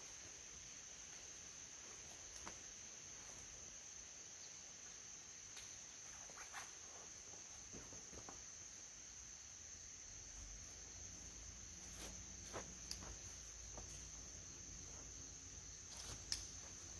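Crickets or similar insects chirring in a steady high drone, faint under near-silence, with a few faint clicks and rustles and a low rumble coming in about halfway.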